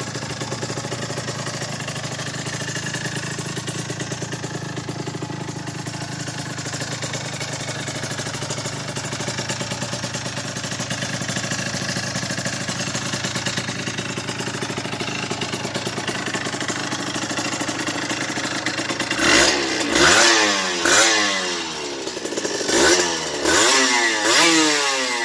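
Suzuki RG 125's single-cylinder two-stroke engine breathing through an aftermarket Jollymoto exhaust, idling steadily. Near the end the rider gives about six quick throttle blips, each revving up and dropping back.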